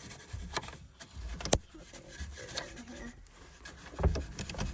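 Car interior parts being handled and wiped during detailing: rubbing, one sharp click about a second and a half in, and a few dull knocks near the end.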